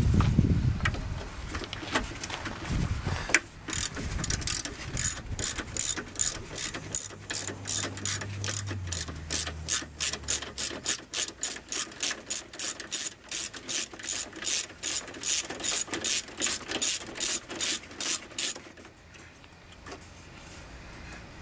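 Socket ratchet on a long extension clicking in steady strokes, about three clicks a second, as a 10 mm headlight mounting bolt is worked loose. A few dull knocks come before it, and the clicking stops near the end.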